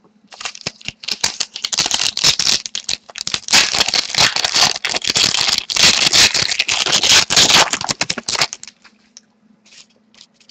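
Dense rustling and crinkling of a hockey card pack and its cards being handled close to the microphone, many small rapid clicks that stop abruptly about eight and a half seconds in.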